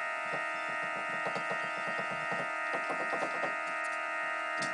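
Electronic organ sounding one steady, buzzy chord that never changes, held down by the weight of a cat lying across the keys. Short clicks and brief notes come and go over it as a hand presses other keys.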